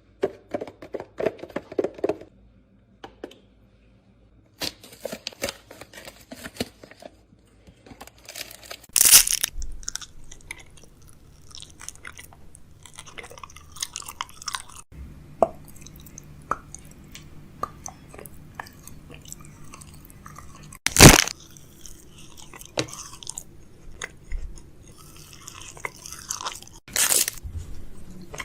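Close-miked chewing and crunching of food, full of small crackles and clicks, with three loud sharp crunches spread through it.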